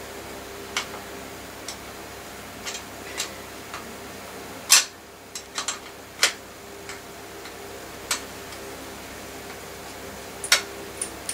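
Sparse, irregular metallic clicks and taps of a spanner working the rear wheel axle nut of an upside-down mountain bike, with a sharper knock near the middle, over a faint steady hum.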